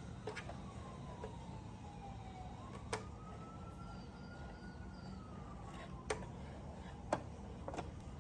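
A siren wailing, its pitch slowly rising and falling over a few seconds at a time, with a few sharp clicks in between.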